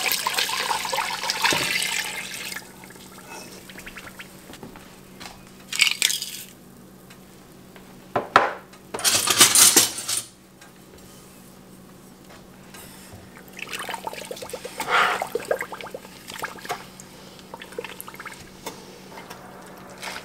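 Apple cider vinegar poured from a glass measuring pitcher into a stainless steel stockpot of sugar, splashing for the first couple of seconds. Then come a few short bursts of sound as whole cloves, celery seed and cinnamon sticks go into the pot, the loudest about nine to ten seconds in. Later a spoon stirs and scrapes in the pot.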